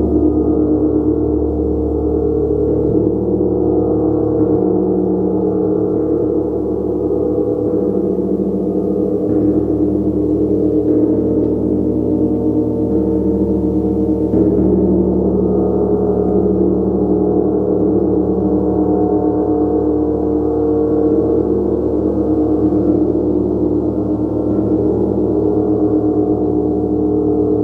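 A large gong played continuously, a dense wash of many overlapping sustained tones that holds steady in loudness. It is kept sounding by soft, repeated mallet strokes every second or two.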